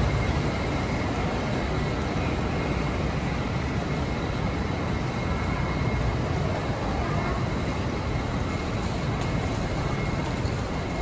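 Steady traffic and vehicle noise at an airport kerbside under a concrete overpass, with a faint steady high whine.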